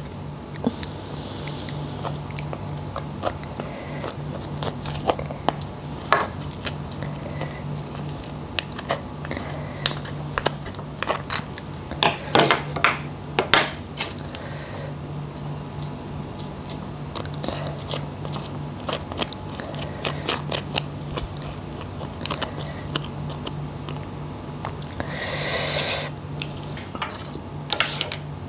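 Close-miked chewing and crunching of seafood dressed in fish sauce, with many sharp clicks of biting and mouth sounds and a denser run of them about halfway through. A short rush of breath-like noise comes a couple of seconds before the end, over a steady low hum.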